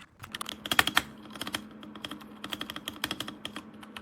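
RK Royal Kludge RK61 mechanical keyboard being typed on in quick bursts of keystrokes, the loudest clacks about a second in.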